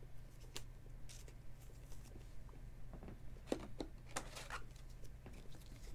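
Faint rustling and a few light clicks of a trading card and a thin plastic card sleeve being handled, over a low steady hum.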